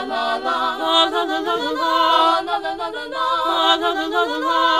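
Small mixed-voice choir of teenage madrigal singers singing a cappella in several-part harmony, with held notes that shift pitch together.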